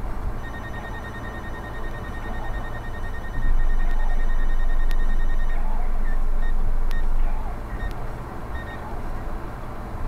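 Rapid electronic beeping, many short high beeps a second for about five seconds, then single beeps now and then. Under it a loud low rumble comes in about three and a half seconds in and drops away about seven seconds in.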